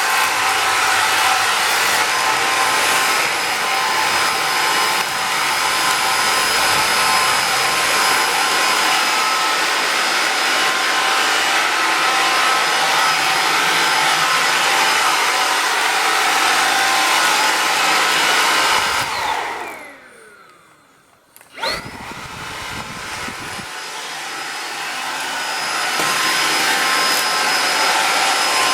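Xiaomi cordless vacuum cleaner running steadily with a high-pitched whine. About two-thirds of the way through its motor winds down to a stop, then it is switched back on and spins up again to full speed over a few seconds.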